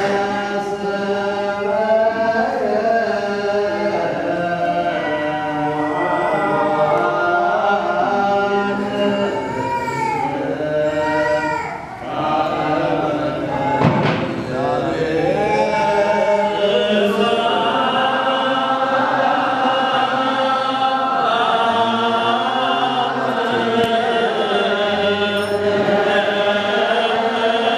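A group of voices chanting a liturgical hymn together in Ethiopian church style, long held notes moving slowly in pitch. The singing dips briefly about halfway through, and a single sharp knock is heard soon after.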